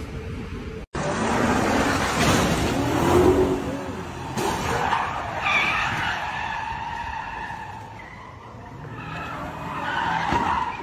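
Car tires squealing and skidding on pavement, starting loudly about a second in and returning in drawn-out screeches later on.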